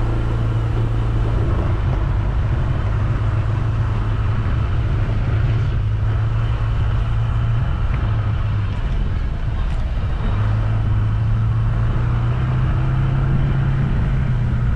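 Car driving steadily: a continuous low engine hum with road and tyre noise. The hum eases briefly about two thirds of the way through, then comes back.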